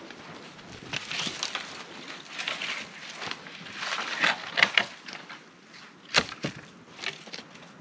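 A dead sapling being pushed over and broken: dry wood cracking and splintering with twigs snapping, with a sharp loud crack about six seconds in.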